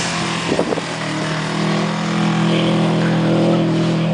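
Subaru WRX flat-four engine running steadily with an awful knock, which the owner takes for a broken bearing or a valvetrain part failing during a drift.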